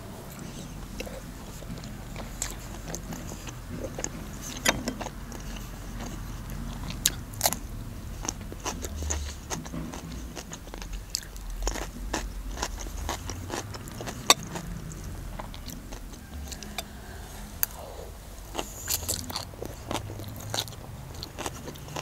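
A person chewing and biting food close to the microphone, with many scattered sharp clicks over a low steady rumble.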